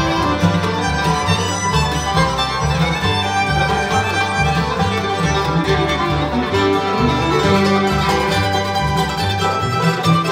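Bluegrass band playing an instrumental passage on fiddle, mandolin, acoustic guitar, five-string banjo and upright bass, with the fiddle to the fore and the bass walking underneath.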